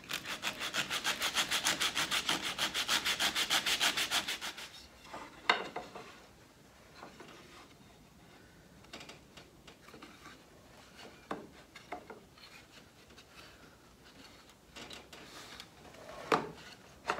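Rapid back-and-forth hand-sanding strokes with a sanding block on the end of a wooden brace, easing a joint that fits too tight; the sanding stops after about four and a half seconds. Then come a sharp wooden knock and a few lighter knocks and taps as the brace is test-fitted against the other pieces.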